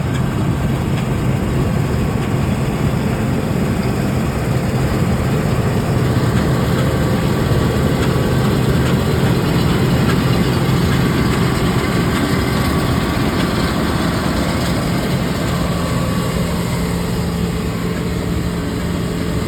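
Combine harvester working in wheat: a loud, steady engine drone mixed with the noise of the threshing machinery. The engine note steps slightly higher about three quarters of the way through.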